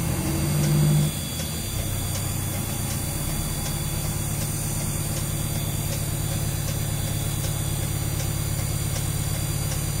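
Fire truck's diesel engine idling steadily, heard from inside the cab, with a louder hum during the first second that drops away about a second in.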